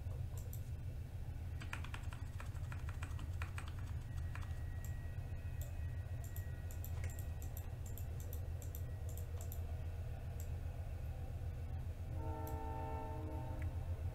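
Clicks of a computer mouse and keyboard over a steady low hum, with a brief horn-like tone lasting about a second near the end.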